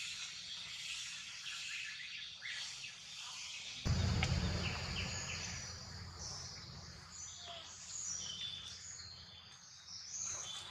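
Outdoor forest ambience with birds chirping over a steady hiss. About four seconds in, a louder low rumbling background comes in abruptly.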